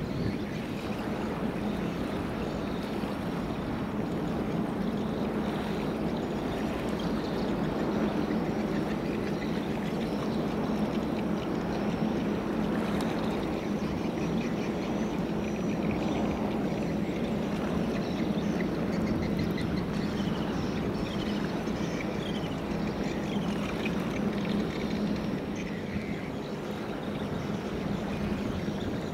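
Large container ship passing close: steady rushing and churning of water from its bow wave, over a low steady drone from the ship.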